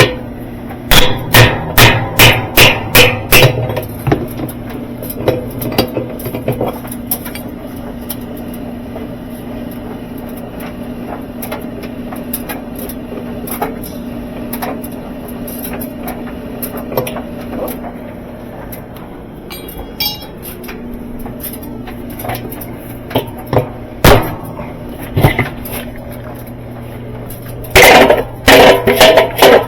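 Repeated hammer blows: a quick run of about eight sharp strikes, roughly three a second, near the start, scattered lighter knocks, and another fast run of strikes near the end, over a steady low hum.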